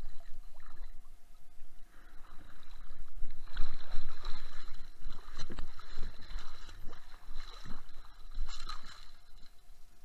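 Surf water sloshing and churning, heard from underwater and muffled through a waterproof camera housing, with scattered short knocks as a sand scoop is worked.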